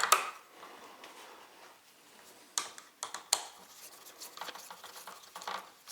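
Scattered light clicks and scrapes of a copper circuit wire being worked onto a single-pole wall switch's terminal screw with a screwdriver. The sharpest clicks come at the start and about three seconds in.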